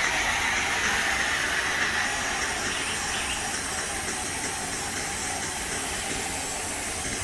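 Pressure washer spraying through a foam cannon: a steady hiss of spray that eases slightly after about two seconds.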